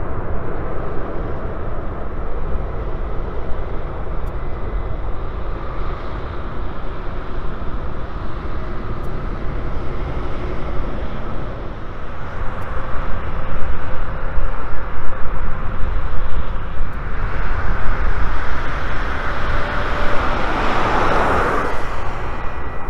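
Boeing 777 freighter's GE90 jet engines at take-off thrust during lift-off and climb-out, a steady rushing roar. It grows louder about halfway through and is loudest a second or two before the end.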